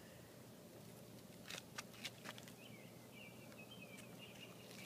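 Near silence with a faint outdoor background. A few soft clicks come about a second and a half to two seconds in, and faint high chirping runs through the second half.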